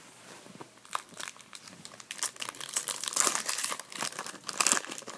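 Hockey card pack wrapper crinkling as it is handled and torn open. It grows louder and denser from about two seconds in, with a sharp click about a second in.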